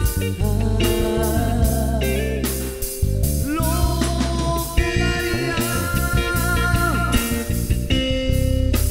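Music: a Spanish-language romantic song with guitar and a steady bass, in an instrumental passage between sung lines.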